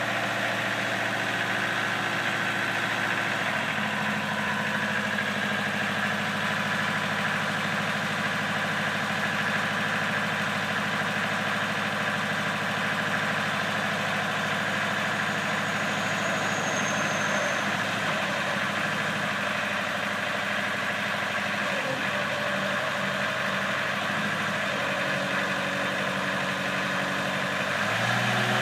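Truck-mounted forklift's engine running steadily near idle while its forks are raised on the mast, the engine note shifting a few times as the hydraulics work.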